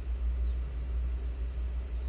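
Steady low rumble heard inside a car's cabin while it idles, stopped in traffic.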